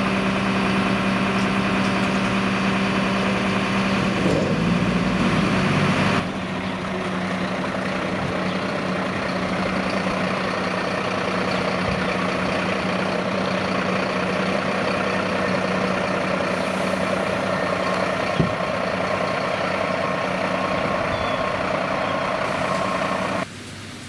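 Fire truck diesel engines: first a steady idling note from the turntable ladder truck standing with its ladder raised, then after a cut a fire truck driving slowly over wet cobblestones, engine running with tyre hiss on the wet surface. One sharp knock about three quarters of the way through.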